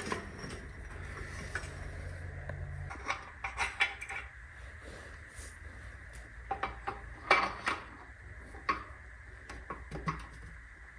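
Scattered metal clanks and clinks as steel equipment and parts knock together while being shifted, over a low steady hum that stops about three seconds in.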